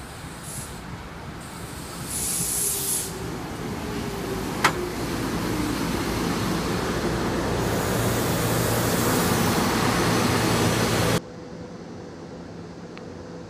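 SEPTA Silverliner IV electric commuter train pulling into the station and passing close by, the rumble of its wheels and motors building as it comes alongside, with a brief hiss early on, a falling whine as it slows and a single sharp click. Near the end the sound drops abruptly to a quieter steady hum from the train standing at the platform.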